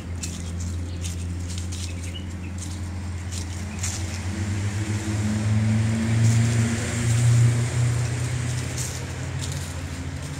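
Street traffic: a steady low engine hum, with a vehicle's engine growing louder in the middle and then fading as it passes.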